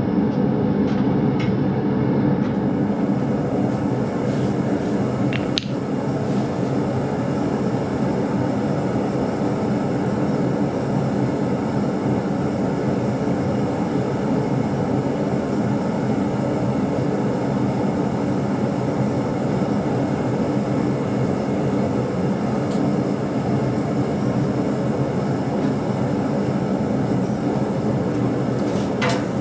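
A blacksmith's forge running with a steady, unbroken roar. A couple of brief sharp clicks sound in the first six seconds.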